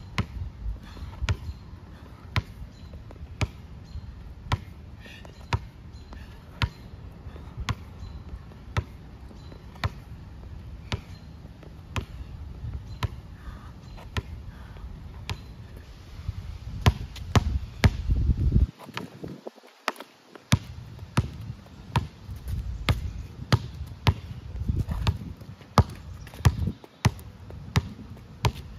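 A basketball dribbled on an outdoor asphalt court, sharp bounces at about one a second that turn quicker and less even in the second half, as the player works crossover dribbles.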